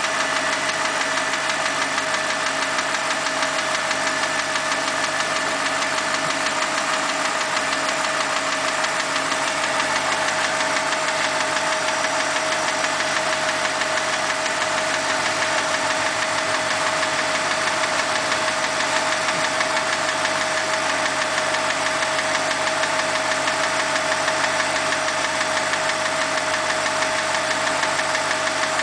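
BMW 545i's 4.4-litre V8 running steadily with a fast, even ticking and a steady whine. The owner ties the ticking to the valves.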